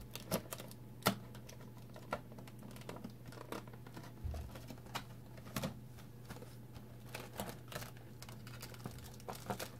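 Hands handling a figure's cardboard box and plastic packaging: scattered, irregular light clicks and taps.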